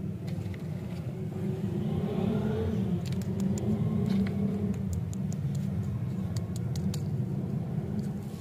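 A steady low rumble like distant road traffic, with scattered light clicks and crinkles of a paper lollipop wrapper being handled by fingers from about three seconds in.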